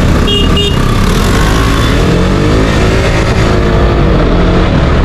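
KTM RC 125 motorcycle riding in city traffic, its single-cylinder engine running, with the engine pitch rising and falling about midway. Two short beeps sound near the start.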